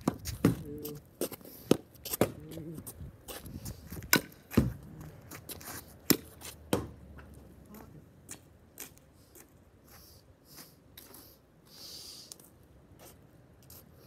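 Irregular sharp taps and knocks close to the microphone, several loud ones in the first seven seconds and then fewer and fainter, with a brief mutter of a voice near the start.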